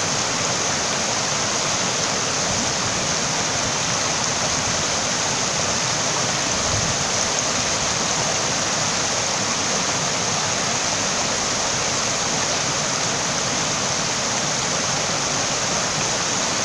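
Rushing water of a fast-flowing stream: a steady, even hiss of flowing water.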